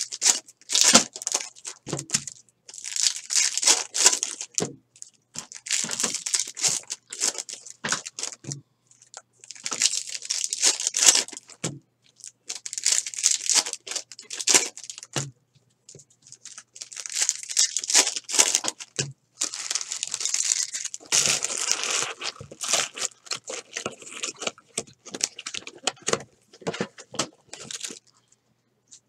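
Foil wrappers of 2018 Bowman's Best baseball card packs being torn open and crinkled, one pack after another, in repeated bursts of tearing with short pauses between them.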